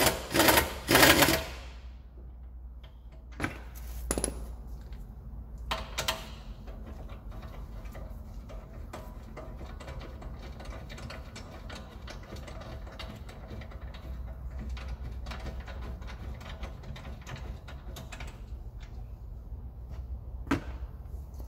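Pneumatic wrench (air gun) running in the hub bolts on a BMW 750i front wheel hub. It gives three short loud bursts at the start, then a long stretch of quieter, fast, even clicking.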